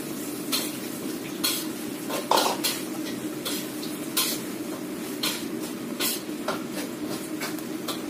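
Cooking at the stove: a metal utensil clinks and scrapes against a pan about a dozen times at irregular intervals, over a steady sizzle of frying and a low steady hum.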